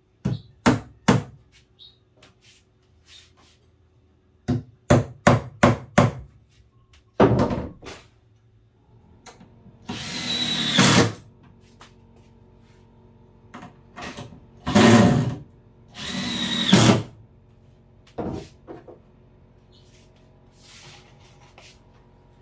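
Hammer blows on a plywood countertop, three near the start and a quick row of about five a few seconds later. Then a cordless drill drives screws into the plywood in three runs of about a second each, the last two close together, with a couple more knocks after.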